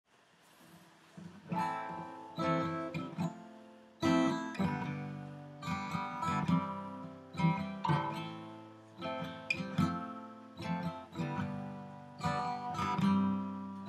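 Acoustic guitar played solo: strummed chords mixed with picked notes, with an accented stroke about every two seconds. It starts faint and comes in firmly about a second and a half in.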